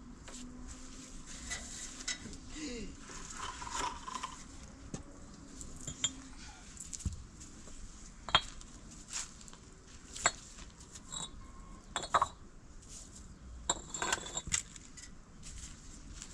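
Scattered light clinks and knocks of hard objects striking one another: a dozen or so irregular, sharp strikes, several with a short ring.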